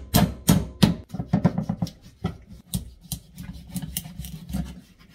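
Repeated chopping blows into the head of a whole red snapper as it is split open for a butterfly cut: several hard strikes at first, then a quicker run of lighter knocks.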